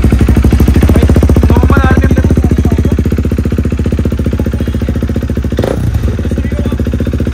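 KTM RC 390's single-cylinder engine idling steadily through a newly fitted R9 aftermarket exhaust, run without its dB killer insert. The idle is loud, a rapid, even train of exhaust pulses.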